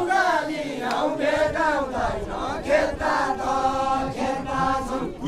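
A group of voices singing a Nepali Deuda folk song without instruments, in long wavering lines with some steadily held notes.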